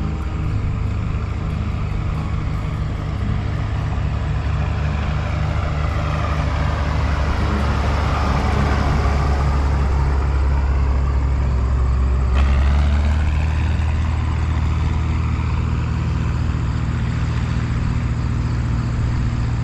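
Tractor engines running steadily, a deep even hum.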